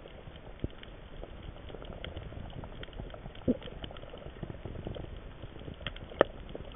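Underwater crackle of a coral reef: a dense, steady patter of tiny clicks and pops over a low water hiss, heard through a camera underwater. A few louder knocks stand out, about half a second in, halfway through and near the end.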